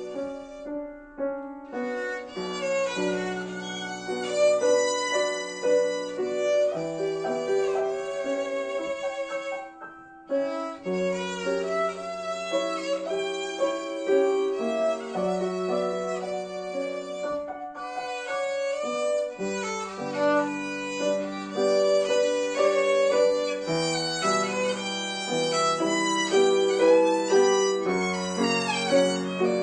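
Solo violin playing a melody of held, bowed notes over piano accompaniment, with a brief lull about ten seconds in.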